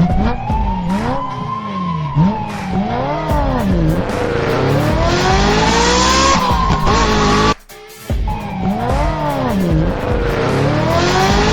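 Cartoon vehicle sirens wailing, several overlapping tones gliding up and down in repeated arches over background music. They cut out briefly about two-thirds of the way through, then start again.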